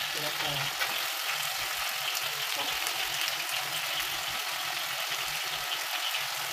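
Food sizzling steadily in hot oil in a frying pan on the stove, with faint small crackles.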